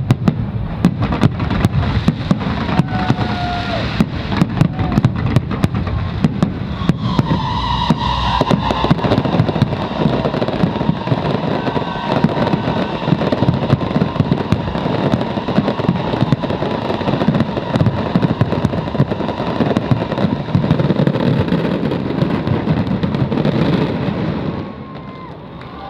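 Fireworks show going off in a dense barrage: rapid sharp bangs over continuous crackling, dying away about a second before the end.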